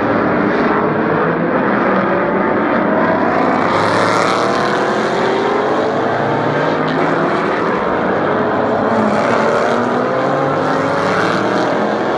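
A pack of GTS-class GT race cars running through a tight corner, several engine notes overlapping and rising in pitch as the cars accelerate.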